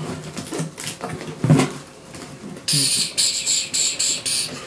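Packaging crinkling and rustling as an item is pulled out of a box. The crinkling gets louder and denser over the last two seconds, with a fast uneven flicker.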